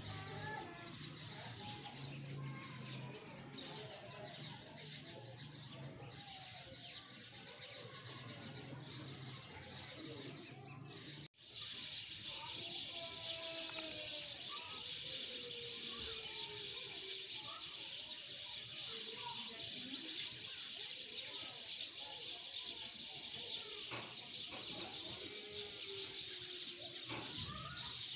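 Many small birds chirping together in an evening chorus, a dense continuous high twittering with scattered lower calls standing out. The sound drops out for an instant about eleven seconds in.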